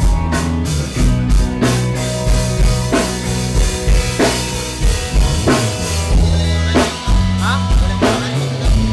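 Band music with a steady drum-kit beat, kick and snare, over a held bass line.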